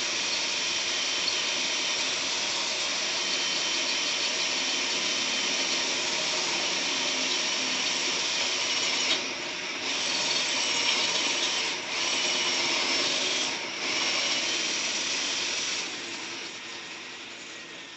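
Electric drill with a high-speed steel titanium bit boring into a safe's steel, a steady high-pitched grinding whine. It eases off briefly three times in the second half, then winds down near the end as the bit punches through a layer.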